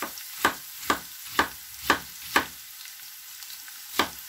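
Kitchen knife chopping cabbage on a cutting board: six sharp chops about half a second apart, a pause, then two more near the end, over a steady sizzle of vegetables frying.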